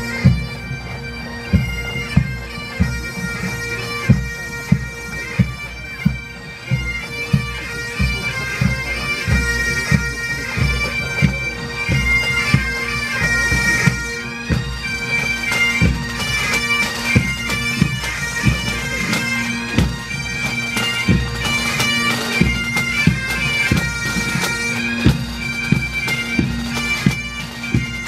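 Massed Highland bagpipes playing a march tune over their steady drones, with the pipe band's drums beating a steady time.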